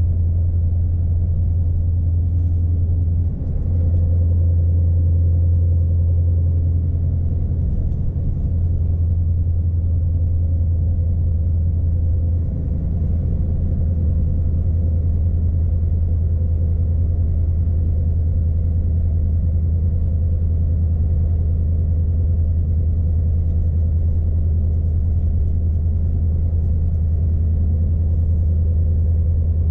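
Low, steady drone of a Scania S520's V8 diesel engine and tyre rumble, heard inside the cab of the loaded truck cruising on the road. The sound dips briefly twice, about three seconds in and again about twelve seconds in.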